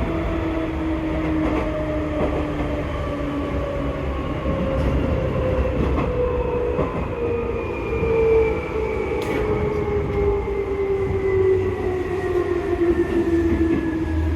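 Seibu 2000 series electric train's traction motors whining, several tones sliding slowly down in pitch as the train slows, over the rumble of the running gear and a few clicks from the rails.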